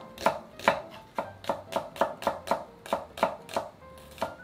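Chef's knife slicing half an onion into strips on a wooden cutting board: an even run of knocks as the blade hits the board, about three to four a second, stopping shortly before the end.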